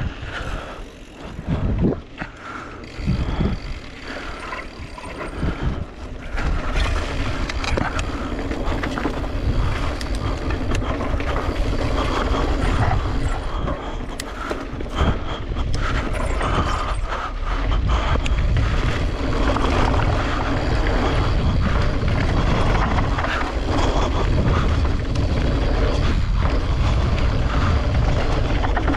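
Wind buffeting the microphone of a camera on a mountain bike riding a dirt trail, mixed with tyre roll and rattles of the bike over bumps. Uneven with scattered knocks at first, it grows louder and steadier about six seconds in.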